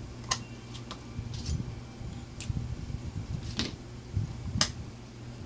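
About six sharp clicks at irregular intervals from a momentary push-button switch being pressed and a 12-volt automotive relay pulling in and dropping out, over a steady low hum. The switch is one that the owner suspects is going bad.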